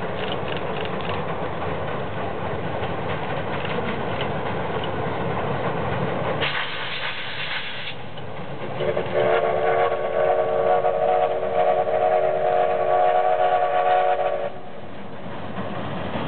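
C11 steam tank locomotive running across a steel girder bridge with a steady rumble. About six seconds in there is a brief hiss, and from about nine seconds its steam whistle sounds one long blast of several notes at once, lasting about six seconds.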